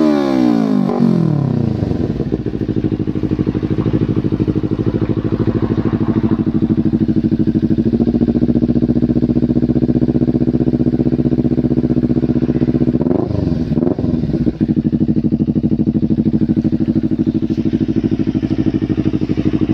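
Kawasaki Ninja 250 FI parallel-twin engine running through an F2 Racing full-system stainless aftermarket exhaust. The revs fall sharply from high to a steady, pulsing idle in the first two seconds. There are a couple of quick throttle blips about thirteen seconds in.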